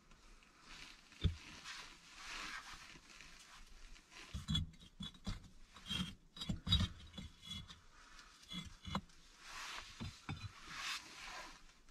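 Bricks being laid dry on a small brick stove: rough scraping of brick against brick, with a run of short knocks and a few sharper clicks as they are set down in the middle.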